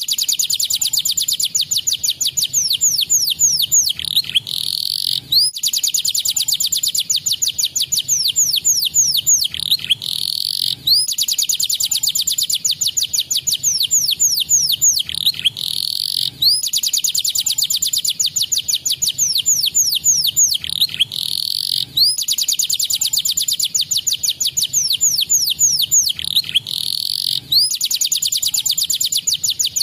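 Domestic canary singing: fast, high-pitched trills of sharply falling notes. The same song phrase repeats about every five seconds.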